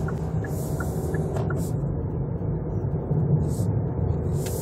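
Kia Niro plug-in hybrid driving in electric mode, heard inside the cabin: a steady low rumble of tyres on the road with no engine note. There are faint, regular ticks in the first second and a half.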